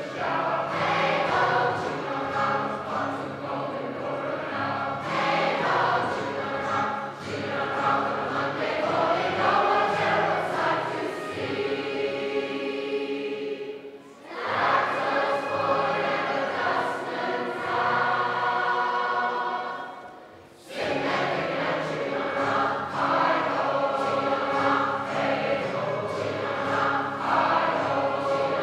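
Large choir of men and women singing a sea shanty together, with two short pauses between phrases, about halfway and about two-thirds of the way through.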